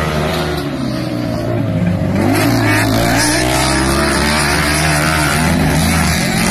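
Several racing ride-on lawn mower engines running and revving on a dirt track, their pitches rising and falling as they accelerate and ease off. It gets louder from about two seconds in, as one mower passes close.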